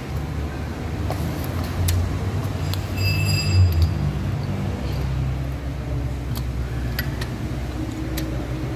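Steady low mechanical hum of workshop machinery, with a short high whine about three seconds in and a few light metal clinks as a coil-spring strut is handled in a spring compressor.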